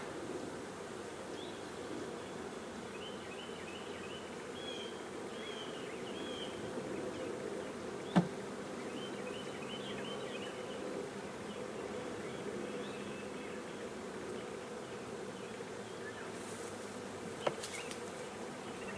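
A swarm of honeybees buzzing steadily around an open hive box. A sharp knock comes about eight seconds in and a lighter one near the end.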